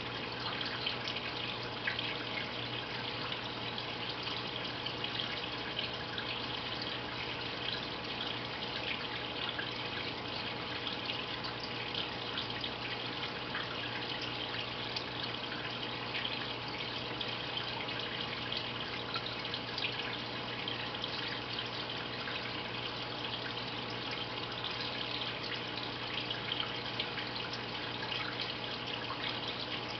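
Aquarium filter water trickling and splashing steadily, with fine drips and a low steady hum underneath.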